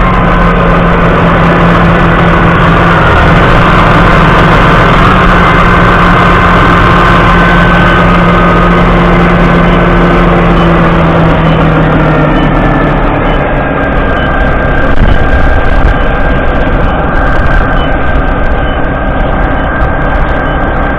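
Case IH Puma 175 CVX tractor's 6.7-litre six-cylinder diesel running steadily while driving a Pottinger baler wrapper, a loud mechanical drone with a whine on top. Part of the drone and whine fades about twelve seconds in.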